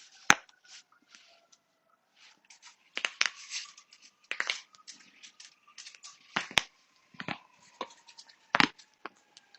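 Human joints cracking: a string of sharp pops at irregular intervals, some single and some in quick clusters, with one of the loudest near the start and another near the end.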